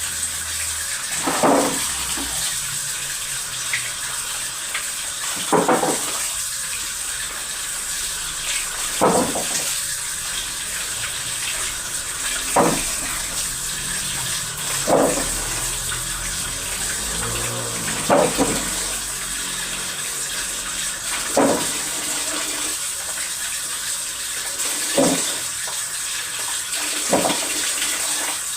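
Water running steadily from a kitchen tap, with a short knock every few seconds, about nine in all.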